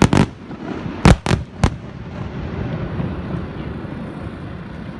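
Fireworks bursting: four sharp bangs, one at the start and three in quick succession about a second later, over steady background noise.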